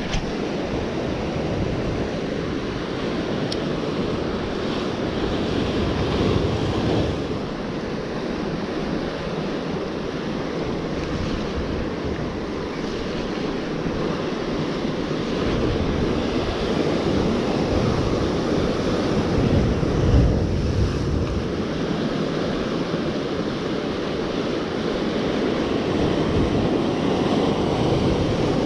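Surf breaking and washing over a rocky shoreline, with wind buffeting the microphone in a low rumble that comes and goes.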